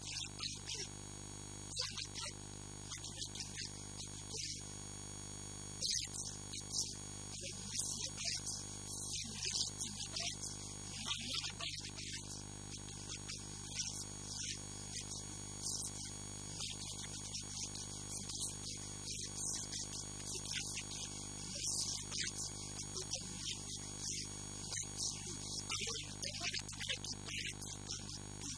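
Steady electrical mains hum and buzz on the recording, with irregular hissy bursts of a man's voice over it.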